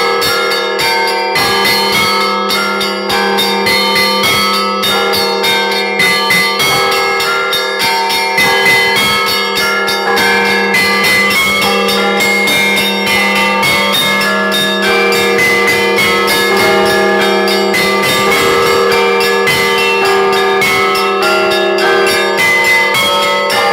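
Orthodox church bells rung together: small bells struck in quick, dense patterns over the steady hum of larger bells. This is the first ringing of the church's bells.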